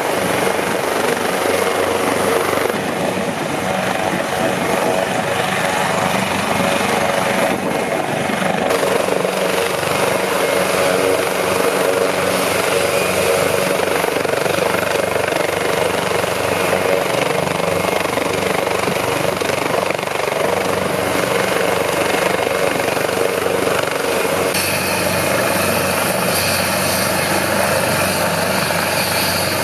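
AgustaWestland AW189 twin-turbine helicopter running on the ground with its rotors turning, a steady loud mix of turbine engine and rotor blade noise.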